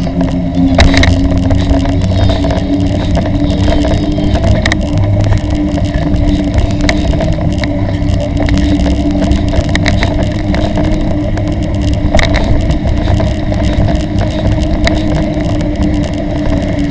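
Steady rolling rumble with a constant hum from a bicycle towing a child trailer along a paved street, with scattered clicks and rattles.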